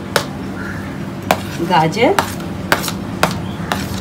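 Metal spoon clinking and scraping against a plate and the rim of a stainless steel bowl as chopped vegetables are pushed into the bowl: sharp clicks roughly every half second.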